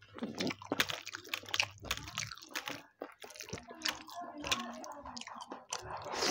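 Close-miked eating of chicken biryani: wet chewing and mouth smacks, with rice and gravy squished and mixed by bare hand on a plate. A large handful is pushed into the mouth near the end.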